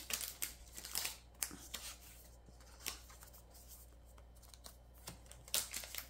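Trading cards being handled: faint, scattered clicks and light rustles of card and plastic, a small cluster about a second in and another near the end.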